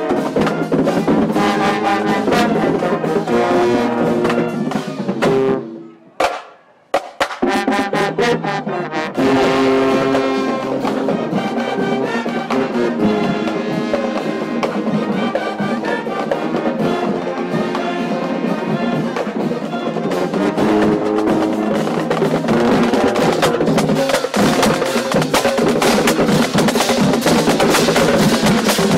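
Marching band playing, brass with sousaphone and drums. About six seconds in the band stops for a moment, with a few sharp hits, then comes back in, and the snare drums grow more prominent near the end.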